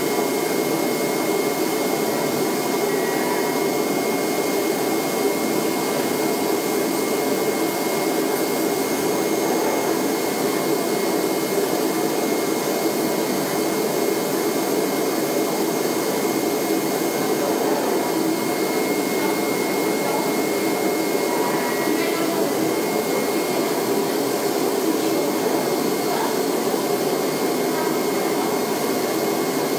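Vacuum hold-down blower of a flatbed CNC cutting table running steadily: an even rushing hum with a thin high whine held over it.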